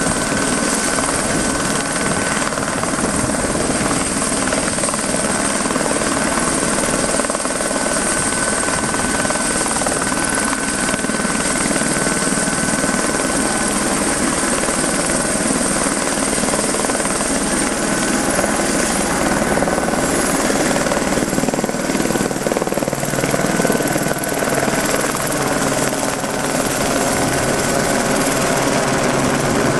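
Light turbine helicopter hovering low with a slung concrete bucket, then climbing away with the load. Its rotor and turbine run steadily, with a high steady whine over the rotor noise.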